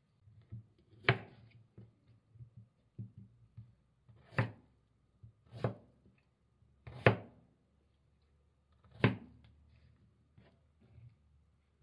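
A chef's knife chopping a broccoli stalk on a wooden cutting board. Five sharp knocks of the blade hitting the board come a second or two apart, with small ticks and rustles of the knife and pieces between them.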